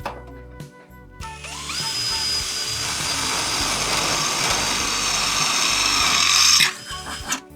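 Angle grinder spinning up about a second and a half in, then running under load with a steady high whine and a dense grinding noise that cuts off suddenly near the end. Background music plays underneath.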